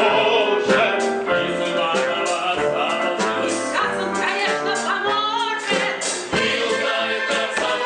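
A live orchestra plays a musical-theatre number with singing over it. A wavering held note comes about four to five seconds in.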